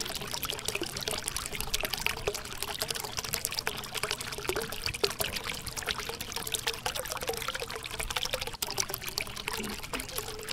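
A thin stream of water from a mini submersible pump pouring out of a small pipe and splashing onto wet sand, a steady trickle with small splashes.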